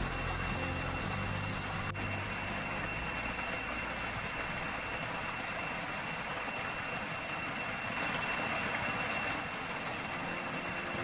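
Stream water pouring down a small cascade over muddy rock: a steady rushing noise, with a few faint thin high tones running through it.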